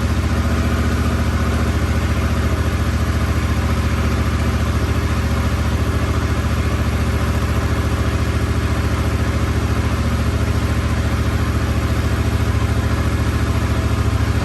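2022 Yamaha R7's 689 cc parallel-twin engine idling steadily through its stock exhaust just after a cold start.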